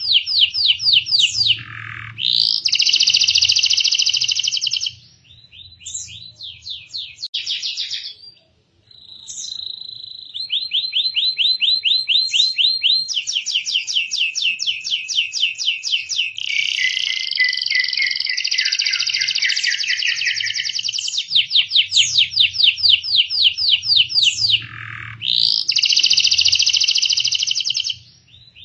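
Domestic canary singing a long song of fast trills and rolls, with short pauses between phrases and a brief silence about eight seconds in.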